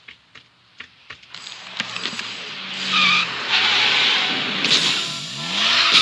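Cartoon film sound effects of cars on a busy road: tyres screeching and skidding as cars brake hard, over rushing traffic noise, with an engine rising in pitch near the end. A few light taps come first.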